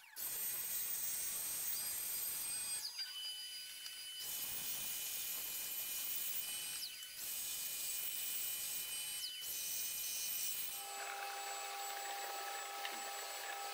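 A handheld power tool running steadily with a high whine over a hiss. It breaks off briefly a few times, each time with the whine sliding down. Near the end the low rumble drops out, leaving a few steady, higher tones.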